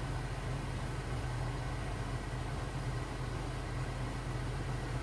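Car engine idling with a steady low hum, heard from inside the cabin, with an even hiss over it.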